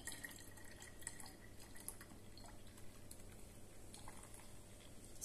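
Faint trickle of lemon juice poured from a ceramic citrus juicer into a plastic bottle of tea, with light dripping and a soft fizzing crackle as the juice's acid reacts with bicarbonate of soda in the tea.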